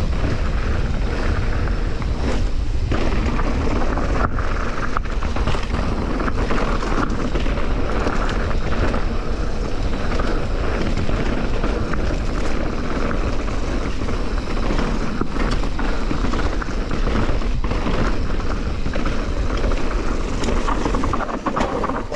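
Mountain bike riding a dirt singletrack: steady rush of wind over the microphone and tyres rolling on the trail, with a few brief knocks as the bike rattles over bumps.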